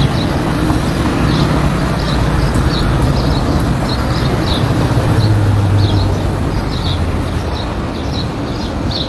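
Steady street traffic noise, with small birds chirping over it again and again.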